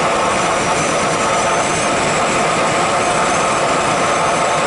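Steady rush of airflow over the canopy and fuselage of an unpowered L-23 Super Blanik training glider as it rolls into a steep left turn.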